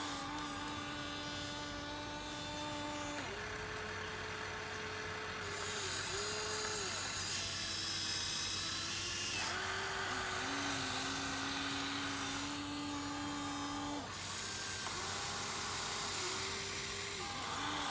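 Small electric gear motors of a Huina 1593 radio-controlled excavator whining as it works. The pitch steps up and down every few seconds as different movements start and stop.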